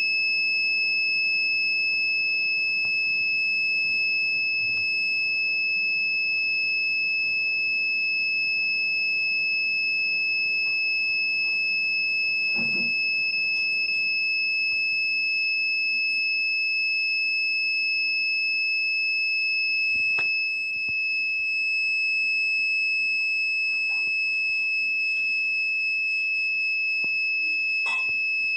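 A homemade single-BC547-transistor siren circuit sounding one continuous high-pitched electronic tone, steady in pitch and level, with no rise and fall like a real siren. The level dips briefly about twenty seconds in, and a few faint clicks sit under the tone.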